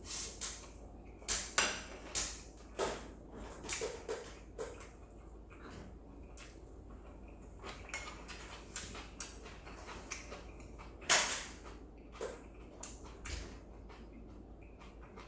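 Eating sounds from stir-fried instant noodles: irregular slurps and chewing, with utensils clinking against the dish. The loudest stroke is about 11 seconds in.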